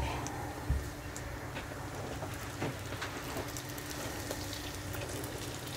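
Hot frying oil sizzling and crackling steadily as raw yeast doughnut dough is lowered into it by hand; a couple of soft knocks come in the first second. The oil has just been tested and is at a good frying temperature.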